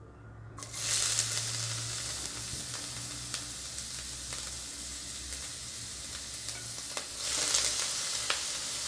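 Diced carrots hitting a little hot oil in a kadai, which starts sizzling suddenly about half a second in and keeps frying steadily. A few light clicks sound over it, and the sizzle swells louder near the end.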